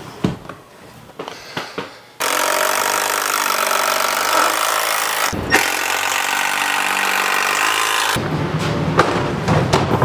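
Cordless impact driver driving a screw into wooden framing, hammering in a long loud run that starts about two seconds in, breaks off briefly in the middle and stops about eight seconds in. Lighter knocks come before and after it.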